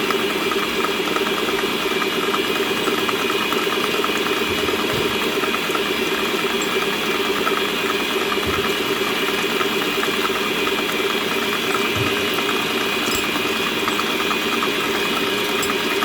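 Electric planetary stand mixer running steadily, its motor humming at a constant speed while it beats butter and sugar.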